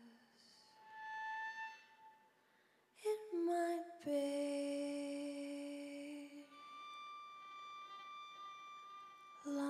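Slow music of long held notes, with short sliding steps in pitch between them; a lower note holds for a couple of seconds around the middle, then a higher one near the end. Near-quiet gap a couple of seconds in.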